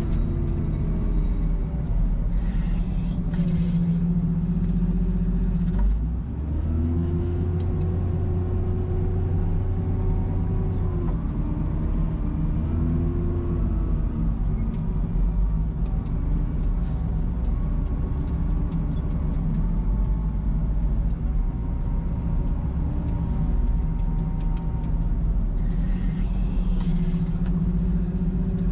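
Case 721E wheel loader's diesel engine running under load while pushing snow, its pitch rising and falling several times through the middle. A stretch of high hissing or scraping comes about two seconds in and again near the end.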